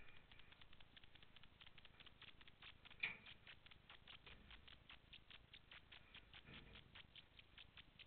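Faint, quick patter of small clicks, several a second, from dogs' claws tapping on the pen floor as the dogs and puppies move about. There is one louder knock about three seconds in.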